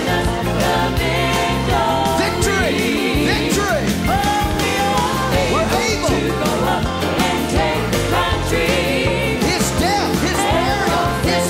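Gospel worship song: voices singing over band accompaniment with a steady beat.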